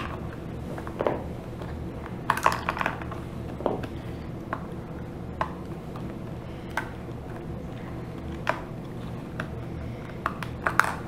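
Small plastic clicks and light knocks, scattered and irregular with a quick cluster a couple of seconds in, as the AAA batteries are pried out of a TI-83 Plus graphing calculator's battery compartment with a small flathead screwdriver and set down. A steady low hum runs underneath.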